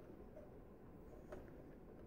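Near silence: faint room tone, with one faint click about a second and a half in from the metal coax connector being threaded onto the Bird 43 wattmeter.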